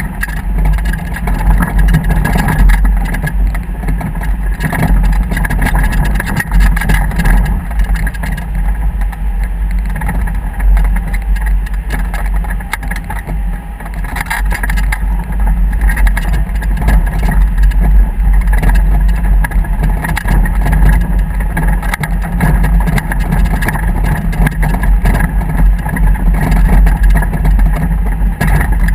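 Motorboat under way: steady engine noise under heavy wind rumble buffeting the microphone.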